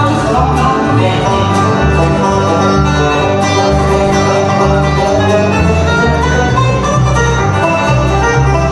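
Instrumental bluegrass from banjo, acoustic guitar and upright bass playing together, with no singing; the bass walks steadily under quick banjo picking.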